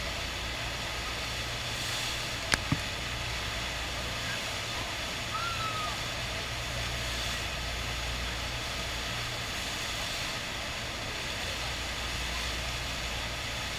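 Steady rushing of the FlowRider surf machine's pumped sheet of water running over the ride surface, with two sharp knocks close together about two and a half seconds in.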